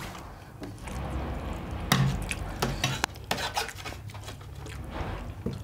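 A spoon stirring and scraping through curry in a steel plate, with scattered clinks against the metal, the sharpest about two seconds in.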